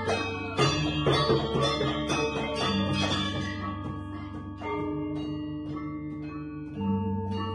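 Balinese gamelan music: struck bronze metallophones ring out in quick, dense patterns over deep, sustained low tones that come in and drop out in sections.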